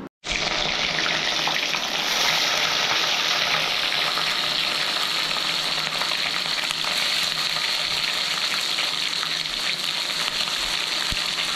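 Food frying in hot oil in a pan, a steady dense sizzle that starts abruptly just after the beginning.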